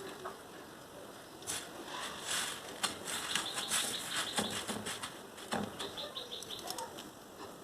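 Dry crushed vermicelli rustling and crackling as egg-dipped potato balls are rolled and pressed in it by hand: a run of small irregular clicks, busiest in the middle.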